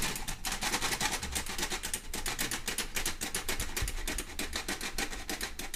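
Hand-worked metal flour sifter rattling in rapid, even clicks, several a second, as flour is sifted into a pot of playdough mixture.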